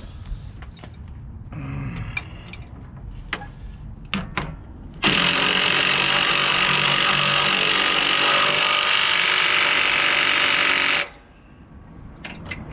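Cordless impact wrench hammering steadily for about six seconds and then cutting off suddenly, tightening the bolt of a new lateral torque rod (dog bone) on a truck's drive axle. A few knocks and a brief, lighter run come before it.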